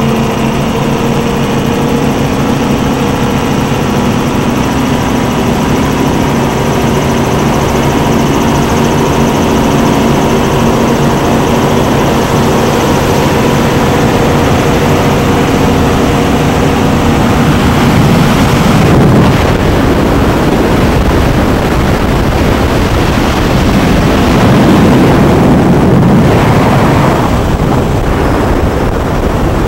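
Loud, steady engine drone with a rushing noise beneath it. About eighteen seconds in, the steady engine tones fade and a noisier rush takes over, swelling around twenty-five seconds in.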